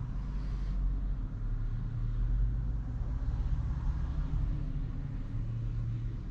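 Steady low road rumble and tyre noise heard from inside a Tesla's cabin while it drives along.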